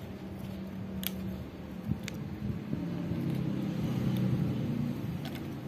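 A low, steady motor-like hum that grows louder about three seconds in, with a few small clicks as fingers handle the ribbon cables at the TV's T-con board connectors.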